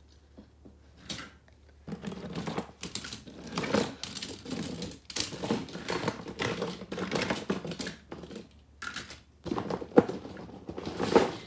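Die-cast toy monster trucks clattering against one another as hands rummage through a pile of them: dense, irregular clicks and rattles of small hard metal and plastic pieces, with one sharper knock about ten seconds in.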